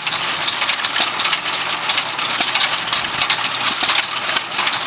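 Economy hit-and-miss gas engine running, a steady patter of clicks and knocks.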